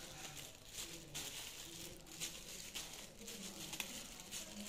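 Soft, scattered rustling and pattering as thin noodles are shaken out of a plastic colander into a metal bowl, with a plastic bag crinkling.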